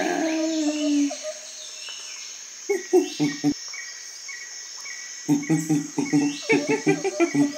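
Steady cricket chirring throughout. A falling pitched call dies away in the first second. Louder short pitched sounds come in quick choppy runs about three seconds in and again from about five seconds in.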